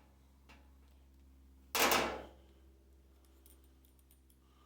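Handling noise as the blade clamp of an oscillating multi-tool is loosened with an Allen wrench: a few light clicks and one louder, short clatter about two seconds in.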